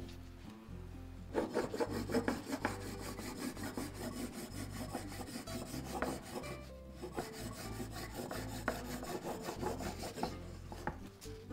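Serrated blade of a cake leveler sawing back and forth through a chocolate sponge cake: a quick, rasping run of strokes that starts about a second in and stops near the end, with a short break about midway.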